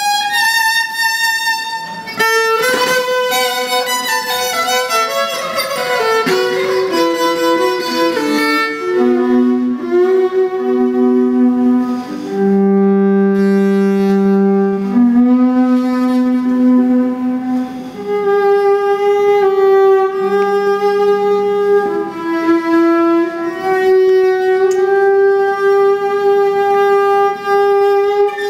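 Electric violin bowed solo. A quick descending run of notes with the notes ringing over one another early on, then long sustained notes, several held low on the instrument for a few seconds each.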